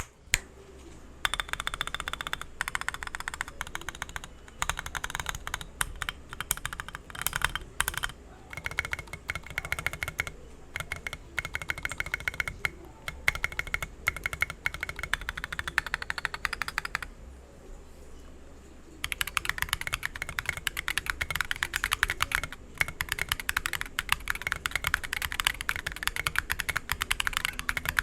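Mechanical keyboard with a concrete case and Designer Studio White Jade tactile switches being typed on: runs of quick keystrokes start about a second in, break off for about two seconds two-thirds of the way through, then pick up again faster and denser.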